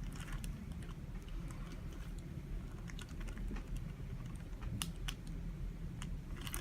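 Hands massaging lotion into the skin of the upper back between the shoulder blades, giving faint, irregular small clicks and smacks, over a steady low room hum.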